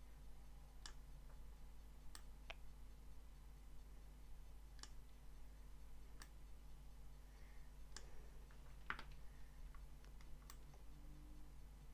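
Computer mouse clicks, about ten sharp single clicks at irregular intervals, over a faint steady low hum.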